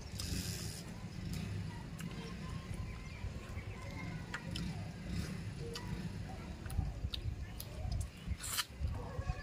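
Close mouth and hand sounds of a person eating fish curry and rice by hand: chewing, lip smacks and wet clicks, with a short slurp about half a second in and another near the end as food goes to the mouth. A steady low rumble runs underneath.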